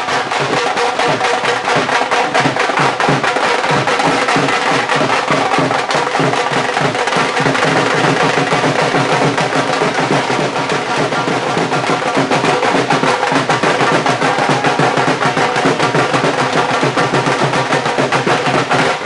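Several large street-band drums beaten with sticks, keeping up a fast, dense, unbroken rhythm.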